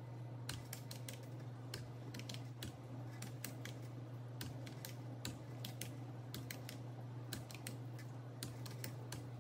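Keys of a plastic desktop calculator being pressed as figures are keyed in and added, a string of light clicks in irregular runs, a few a second, over a faint steady low hum.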